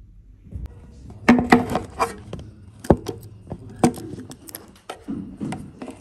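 Irregular sharp knocks and bumps, with a few muffled voices among them, as a phone is picked up and handled.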